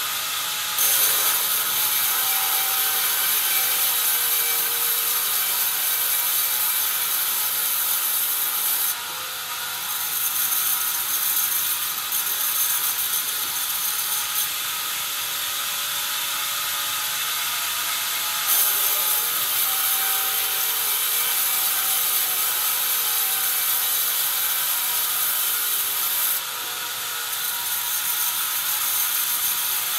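Band resaw blade cutting lengthwise through a pine beam pushed along by a roller feed: a steady high sawing hiss over the machine's running whine, easing briefly twice.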